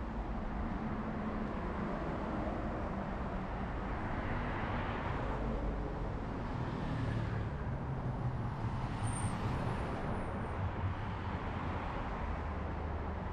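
Steady road traffic on a wide multi-lane city boulevard: a continuous rush of tyres and engines that swells and fades as vehicles pass.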